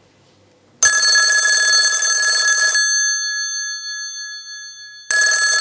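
A bell ringing in two bursts of about two seconds each, starting about a second in, with a clattering ring whose tones hang on and fade between the bursts.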